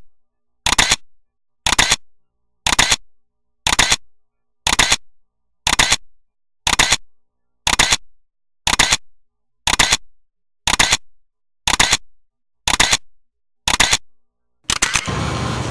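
Camera-shutter clicks repeated evenly about once a second, with silence between them. About a second before the end they give way to a steady noise.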